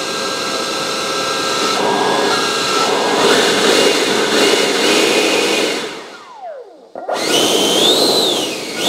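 Schübeler 90 mm electric ducted fan running without its duct: a steady whine and rush of air that builds over the first few seconds, holds at high speed, then winds down with a falling pitch about six seconds in. It spins back up about seven seconds in, its pitch swinging up and down.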